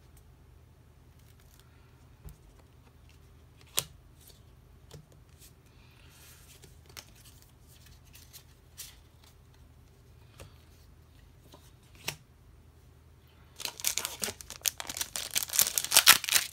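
A few soft clicks and taps of trading cards being set down, then, about three-quarters of the way through, a foil Pokémon booster pack wrapper crinkling loudly as it is handled.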